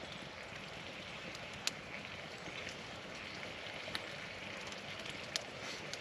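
Food frying in a skillet over a campfire: a steady soft sizzle, with a few sharp crackles from the fire.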